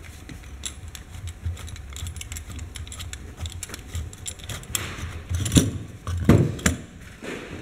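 Metallic clicks and rattles of a hand lever grease gun being handled as its head is unscrewed from the steel barrel, with a few louder knocks past the middle.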